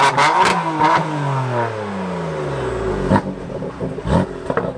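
BMW M4's twin-turbo straight-six revved through its quad exhaust: the revs jump up at the start, then fall away steadily over about two seconds. Several sharp cracks come with it, two of them about three and four seconds in.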